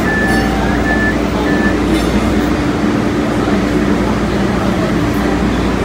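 MBTA Green Line light-rail train running, heard from on board: a steady, loud rumble with a constant humming tone, and a few short high tones in the first two seconds.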